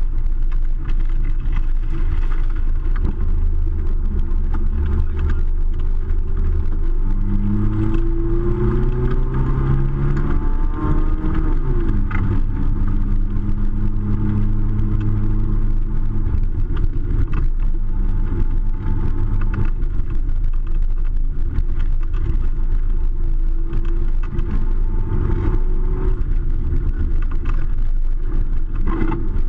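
Off-road vehicle's engine running loudly under load, its revs climbing for a few seconds about a quarter of the way in, then dropping back to a steady pitch.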